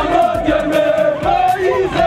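Many voices singing and chanting together in unison, holding long notes.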